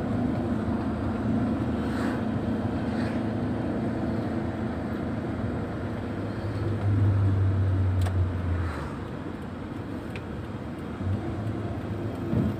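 Car engine and tyre noise heard from inside the cabin while driving, a steady drone. A deeper engine hum swells for about two seconds midway.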